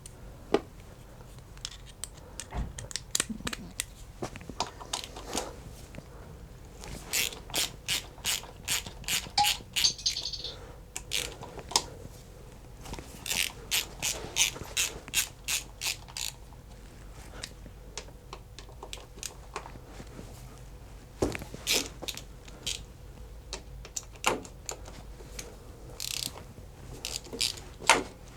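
Socket ratchet clicking in short runs of even strokes, about three to four clicks a second, as the clutch cover bolts of a Yamaha TDM900 are undone, with pauses between bolts.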